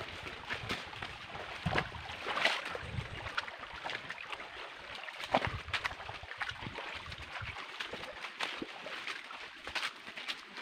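Irregular footsteps knocking and scuffing on stones and gravel as people walk through a shallow rocky creek, with the creek's shallow water trickling and splashing.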